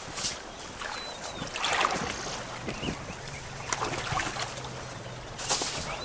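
Elephants wading through water, with irregular splashing and sloshing as a calf struggles across.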